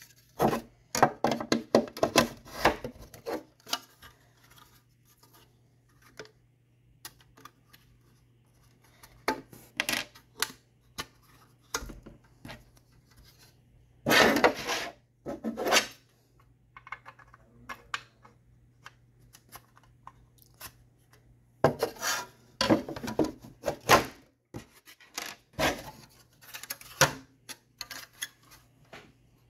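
Fingerboard ramp pieces handled on a tabletop: clusters of knocks, clicks and scrapes as they are set down and slid into place, with quiet pauses between. A faint low hum runs underneath.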